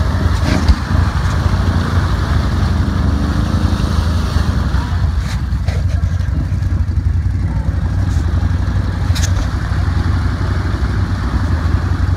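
Can-Am ATV engine running steadily under throttle while the machine is stuck in deep mud, its wheels spinning and churning the mud as the rider tries to work it free. A few sharp clicks are heard around the middle and again about three-quarters of the way through.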